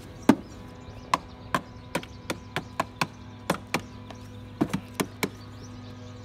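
A child knocking on the plastic body of a red ride-on toy car: an uneven run of sharp knocks, about two or three a second, some in quick clusters.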